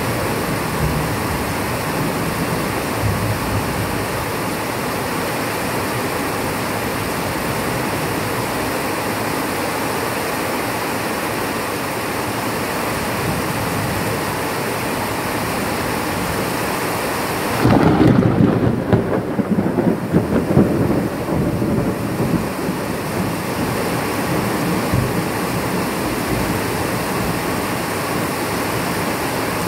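Steady heavy rain falling through a night thunderstorm. About 18 seconds in, a sudden loud rumble of thunder breaks in and rolls on unevenly for about four seconds before dying back under the rain.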